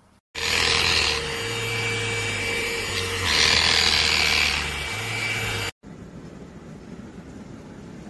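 Enolux LPMY-017 handheld dust-mite vacuum running with a steady motor whine and low hum, its head worked over fabric, with two louder hissing stretches. It cuts off abruptly about five and a half seconds in, leaving a fainter steady noise.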